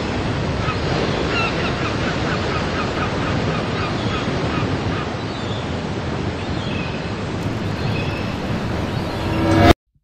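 Ocean surf washing steadily, with seabirds calling in short repeated cries over it. The wash swells and then cuts off suddenly near the end.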